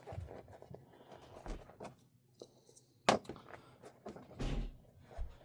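Scattered small clicks and knocks, with one sharp knock about three seconds in and dull low thumps a second or so later.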